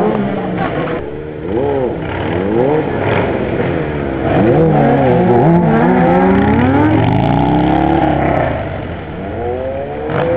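Motorcycle engines revving, their pitch rising and falling again and again, with a louder stretch held at high revs in the middle.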